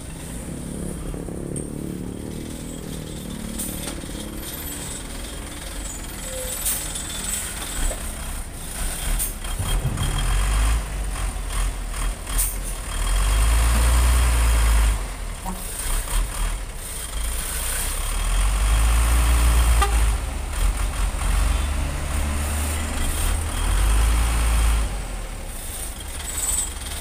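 Container trucks' diesel engines passing close by one after another, their low rumble building to several loud passes in the second half.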